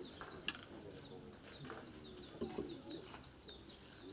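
Small birds chirping outdoors: many short, quick, downward-sliding chirps repeated throughout, fairly faint, over a low murmur.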